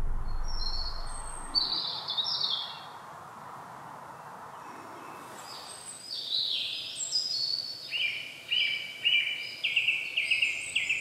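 Songbirds singing: short phrases of quick high notes stepping down in pitch, one near the start and a longer run of phrases from about halfway in. Under the first couple of seconds, a low rumble fades out.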